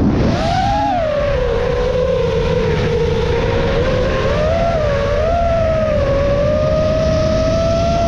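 FPV quadcopter's electric motors whining. The pitch shoots up about half a second in, drops back, then wavers up and down with the throttle. Heavy wind buffets the onboard camera's microphone underneath.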